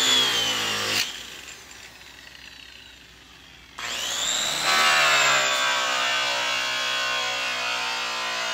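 High-speed rotary polisher spinning a yellow airway buff loaded with green compound against a metal tank. It cuts off about a second in and winds down with a falling whine, then starts again near four seconds in with a rising whine and runs steadily while buffing.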